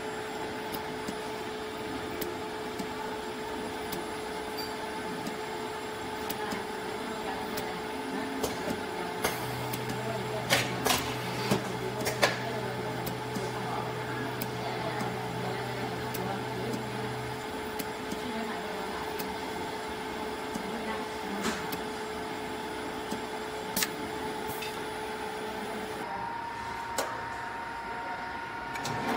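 Steady hum and whir of a 3D silicone embossing (dispensing) machine as its nozzle head lays down silicone, with a few sharp clicks in the middle and a deeper hum joining for several seconds. Near the end the hum changes to a higher steady tone.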